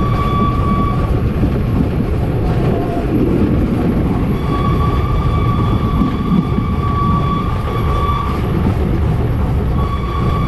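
Steam locomotive running, with a dense, steady rumble and hiss. Over it a steady high tone comes and goes: it stops about a second in, returns from about four to eight seconds in, and sounds again near the end.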